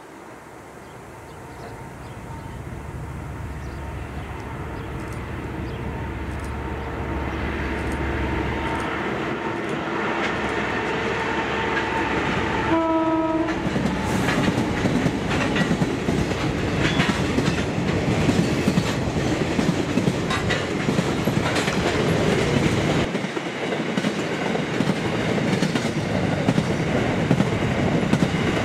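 Diesel-hauled freight train approaching and growing steadily louder, with one short horn blast about halfway through. The wagons then run past, wheels clacking over the rail joints.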